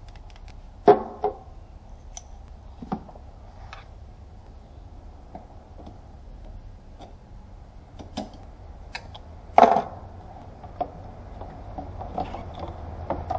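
Hand tools working in a car's engine bay: scattered clicks and clinks of a socket wrench on a long extension, with two louder metal knocks, about a second in and about ten seconds in.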